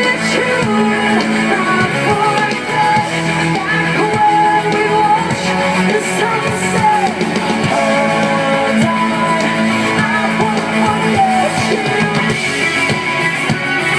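Live amplified rock music from a band on stage: electric guitar and drums with a voice singing over them, continuous throughout.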